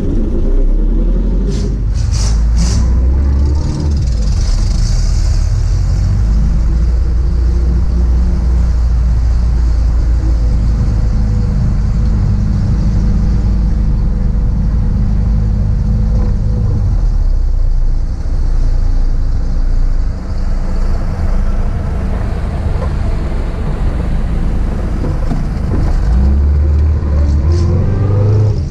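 1966 Triumph Spitfire's four-cylinder engine running under way, heard from the open cockpit with the top down, with wind and road noise. The engine note rises near the start and again near the end.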